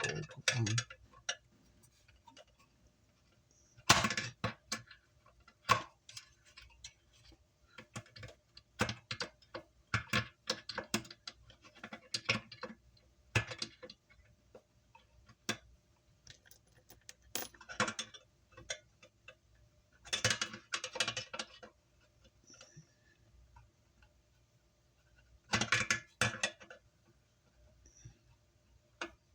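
Irregular clicks and short bursts of metallic clatter from small hardware and parts being handled and fitted while an amplifier is reassembled.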